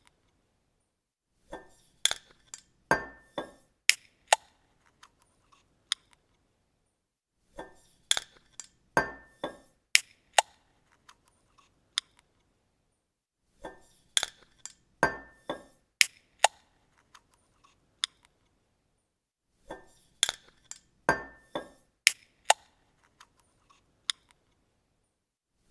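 Bottle cap being opened, four times over. Each take is a quick cluster of sharp clicks and clinks with a brief ringing tone, and the takes come about six seconds apart.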